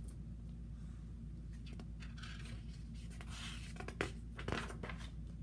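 Paper pages of a picture book being turned: rustling from about two seconds in, lasting some three seconds, with two sharp snaps of the page near the end of it. A steady low hum runs underneath.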